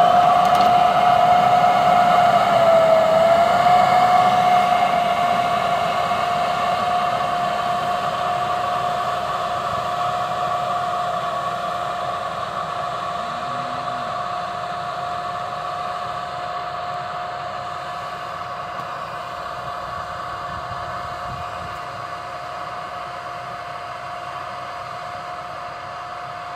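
Massey Ferguson 4708 tractor pulling a multi-row precision planter while sowing: the engine runs steadily under a high, steady whine that dips briefly in pitch about three seconds in. The sound fades gradually as the rig moves away.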